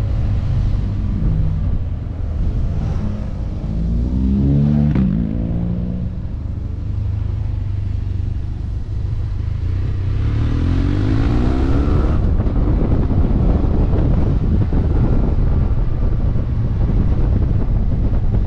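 BMW F800GT parallel-twin motorcycle engine pulling the bike through hairpin bends. Its pitch rises as it accelerates, around four seconds in and again around eleven seconds in, over a steady rush of wind on the microphone.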